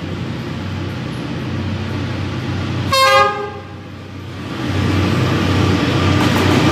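A short horn toot about three seconds in, then a D19E diesel-electric locomotive hauling a freight train approaching, its engine and rail noise growing steadily louder.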